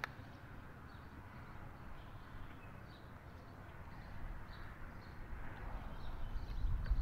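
Quiet outdoor ambience with faint birds chirping now and then, a single soft click right at the start, and a low rumble that builds toward the end.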